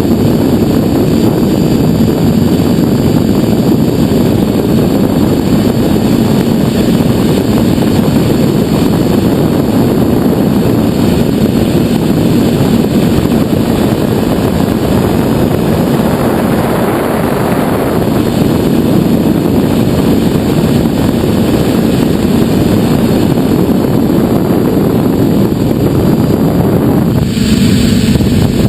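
TBS Discovery quadcopter's brushless motors and propellers running steadily in flight, heard loud and close from the camera on the craft as a dense, buzzing rush. The sound shifts briefly near the end.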